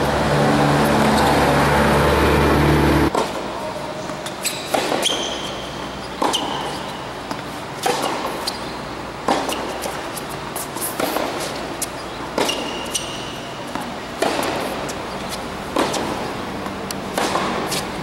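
Tennis rally on a hard court: sharp pops of racquets striking the ball and the ball bouncing, one every second or so. A loud low hum cuts off abruptly about three seconds in.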